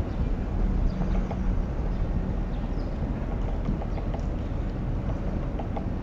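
Faint, irregular tapping of a woodpecker pecking at a tree, over a steady low rumble of wind on the microphone.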